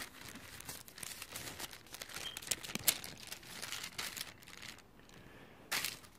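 Thin Bible pages being leafed through: a run of faint papery rustles and crackles, with a louder rustle near the end.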